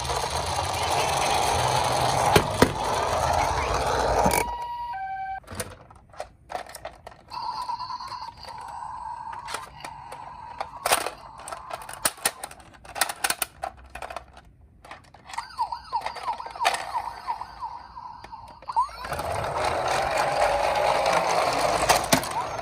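Toy ambulance and police car minicars' electronic sirens sounding together, with clicks and knocks from the toy cars. The sirens are loud for the first four seconds or so, drop to short siren snatches among the clicks, and swell again for the last few seconds.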